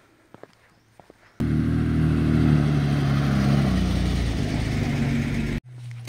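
A motor vehicle's engine running close by. It starts abruptly about a second and a half in, its pitch drops partway through, and it cuts off suddenly near the end. Faint footsteps on a dirt track come before it.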